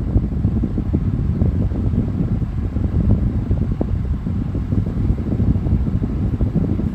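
Strong wind buffeting the microphone: a steady low rumble with irregular gusty flutter.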